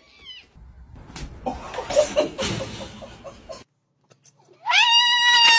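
A kitten scrabbling on a cardboard scratcher pad, a rustling, scratching noise with small clicks. After a cut, a dog gives a loud, long, high-pitched whine near the end, rising slightly and then falling.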